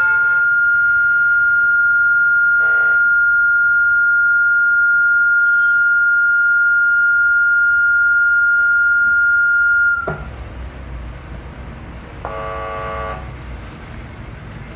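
Acoustic feedback from a microphone through a small amplifier board and its speaker: a loud, steady high whistle on one pitch that cuts off suddenly about ten seconds in. Low hum and hiss follow, with a short buzzy tone near the end.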